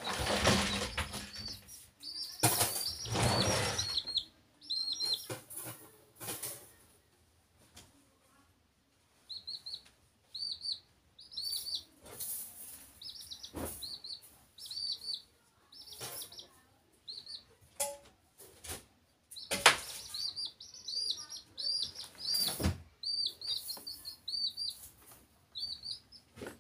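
Baby chicks peeping in runs of short, high, arching cheeps. A few loud knocks and rustles come in among them, the sharpest about two-thirds of the way in.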